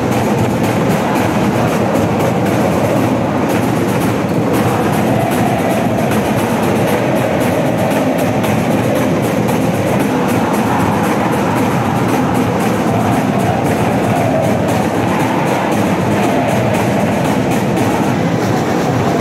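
A large crowd of school basketball supporters singing a chant in unison over beating drums, loud and continuous.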